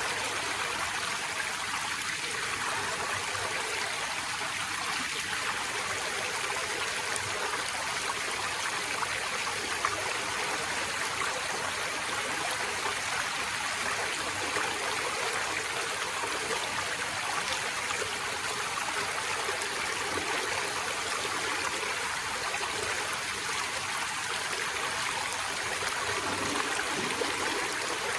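Forest stream running steadily over rocks, a continuous rush of water with light trickling and gurgling.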